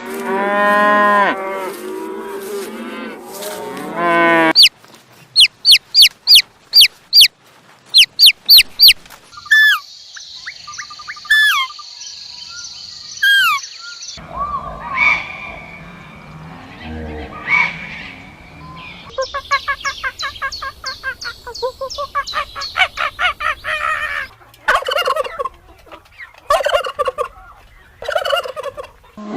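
Several different animal calls, one clip after another. A pitched call lasts about four seconds. Then come about nine sharp, quick chirps, then whistled calls over a steady hiss, and later a long run of fast, rattling notes and a few separate calls.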